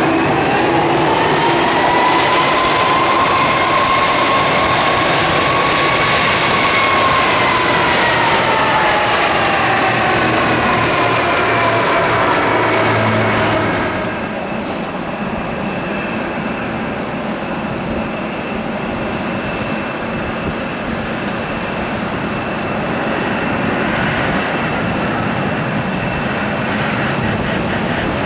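Boeing 767-300ER's turbofan engines at taxi power, a loud whine that rises and then falls in pitch as the jet taxis close past. About halfway through, the sound cuts to the same jet heard from farther off on the runway, running steadily with fixed high whining tones.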